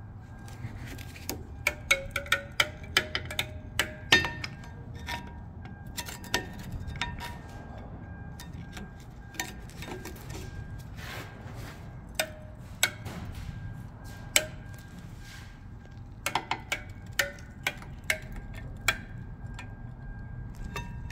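Sharp metallic clicks and clinks of hand tools working on a Jeep Grand Cherokee's rear brake caliper while the caliper piston is pushed back. They come in a quick cluster about two seconds in, a few single clicks, then a second cluster near the end, some with a short ring, over a steady low background hum.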